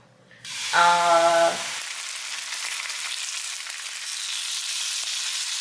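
Turkey bacon sizzling in a nonstick frying pan: a steady frying hiss that begins about half a second in and holds on, with a short held voice sound about a second in.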